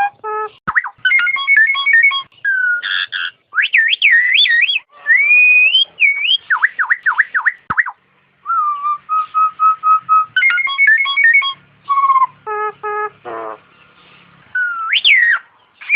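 Nias hill myna calling: a varied run of loud whistled notes, rising and falling glides and quick clipped calls, with a short pause about halfway.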